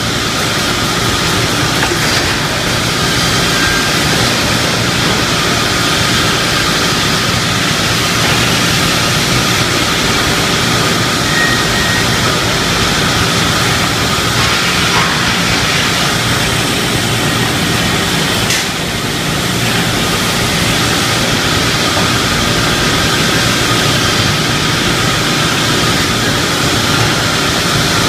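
Pallet-plank ripping saw machine running steadily, its motors and blades making a loud continuous drone, with a brief dip and a click about two-thirds of the way through.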